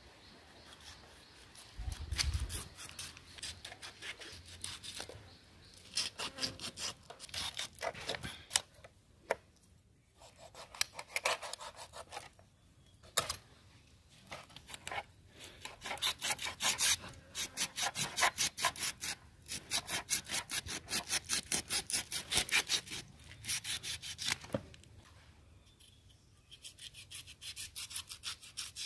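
Knife blade scraping the scales off a whole catla fish against a wooden board, in runs of quick, rhythmic strokes, several a second, broken by short pauses.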